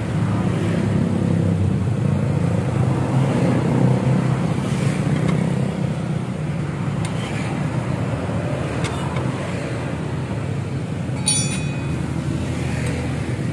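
Steady hum of street traffic, mostly motorcycles, with a few faint clicks of a hand wrench on a scooter's exhaust fittings and a short metallic clink near the end.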